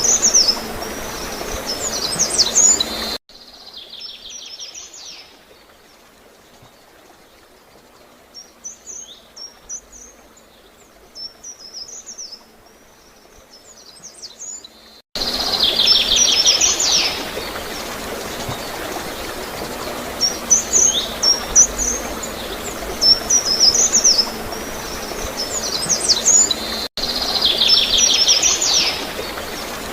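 Small songbirds singing repeated high chirping phrases, some ending in a buzzy trill, over a steady gurgling of flowing water. About three seconds in, the water and birds cut away to a much quieter, fainter birdsong for about twelve seconds, then both cut back in abruptly.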